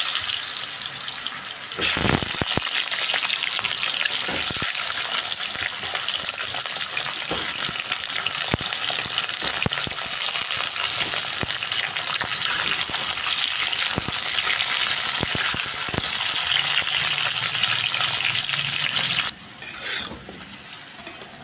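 Potato wedges frying in hot oil in a kadhai: a steady, loud sizzle that jumps louder about two seconds in, with occasional knocks of the spatula against the pan as the pieces are stirred. The sizzle falls much quieter near the end.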